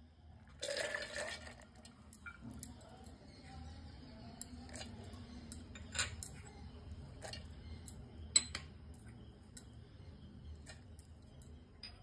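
Chana dal poured into a stainless-steel mixer grinder jar, a short rattle about half a second in, followed by scattered light clinks and taps against the steel as green chillies and chopped coriander are dropped in.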